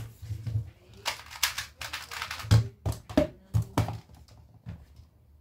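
Irregular sharp taps and clicks from a laptop keyboard being pressed and a 2x2 speedcube being handled and turned on a mat, loudest through the middle and thinning out near the end.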